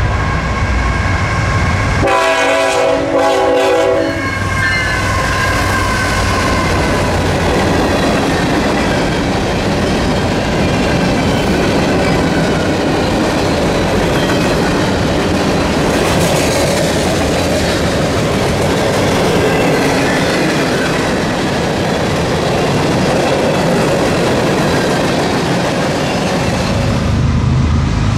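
Diesel-hauled freight train passing at speed: the locomotive's air horn sounds a chord in the first few seconds, loudest about two seconds in, and drops in pitch as the locomotive goes by. A long string of boxcars then rolls past with a steady rumble.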